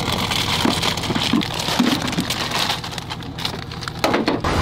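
Dense crackling and rustling, the kind made by a camera microphone handled and rubbed at close range, over a steady low hum of an idling vehicle.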